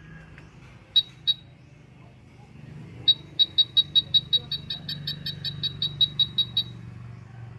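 UNI-T UT387E handheld wall scanner beeping in wood-scanning mode, signalling that it has found something behind the wall. It gives two short high beeps about a second in, then a fast run of about twenty beeps, roughly six a second, for three and a half seconds.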